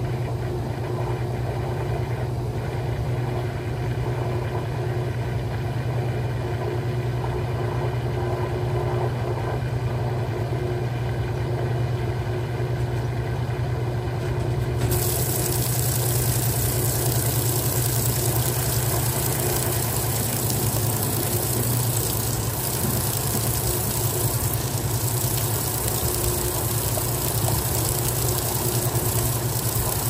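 Electrolux Top8 top-load washing machine in its spin cycle, the motor and basket spinning with a steady low hum. About halfway through, a steady hiss suddenly joins in.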